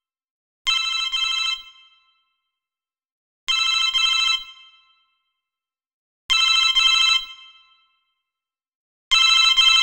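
Corded desk telephone ringing: four double rings about three seconds apart, each ring a quick pair of bell pulses that dies away briefly.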